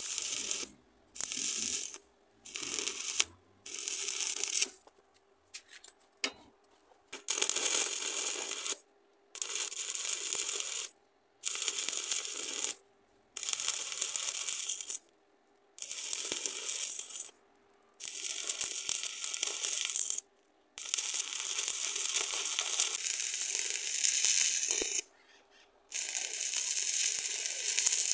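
Stick-welding arc from a 6013 electrode on thin square steel tube, crackling in repeated bursts as the arc is struck and broken again and again. The bursts are short at first, then about one and a half seconds long with brief silent gaps. This stop-start arc is the trick for closing a wide gap in thin-walled tube without burning through.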